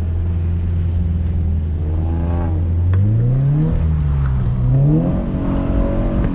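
Car engine holding steady revs, then revving up and back down twice in the second half, as the driver throws the car into a drift.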